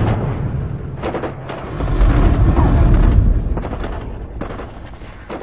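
Intro sound effect of explosions: deep booms and rumble that swell again about two seconds in, with a few sharp cracks, then fade away near the end.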